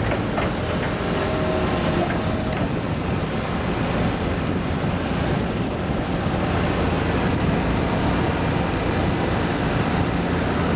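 Hitachi ZX210LC hydraulic excavator running steadily under work, a dense low diesel engine and hydraulic noise, with a faint whine over it in the first two seconds.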